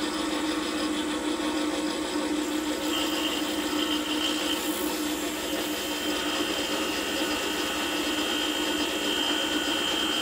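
Baldor tool grinder motor running steadily with its fine diamond wheel spinning. From about three seconds in, a thin high whine joins as the tip of a 3-angle valve seat cutter is pressed against the wheel and ground sharp.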